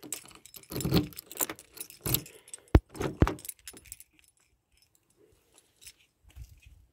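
Keys jangling on a key ring as a key is worked in a car's door lock, with two sharp clicks about three seconds in as the lock turns. After that it goes quiet apart from a few faint sounds as the door is pulled open.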